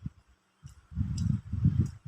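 Close-up chewing of food: irregular low, dull pulses. They start again about half a second in and grow denser. Faint light clicks come in between.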